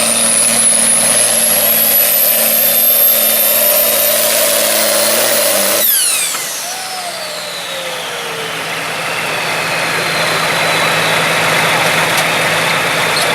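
Turbocharged diesel pulling tractor running hard under load, a high turbo whine climbing steadily over the engine note. About six seconds in the throttle is cut: the engine drops to a lower, quieter steady note and the turbo whine falls away as it spools down.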